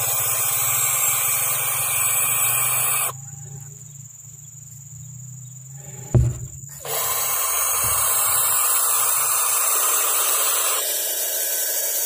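Barn owl chicks hissing: long raspy hisses, stopping for about three seconds in the middle and starting again. A single thump about six seconds in.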